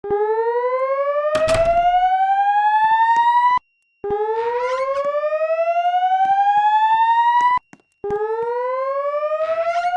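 Fire alarm voice-evacuation system sounding its evacuation tone: a whoop that rises steadily in pitch over about three and a half seconds, breaks off briefly and starts again from the bottom, three times. A brief knock is heard about a second and a half in.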